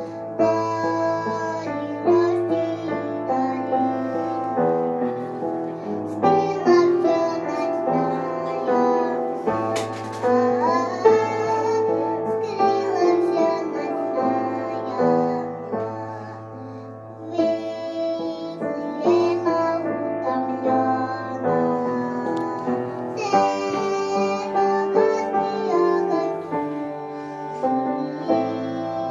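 A female voice singing a song over instrumental backing with sustained chords and a held bass note.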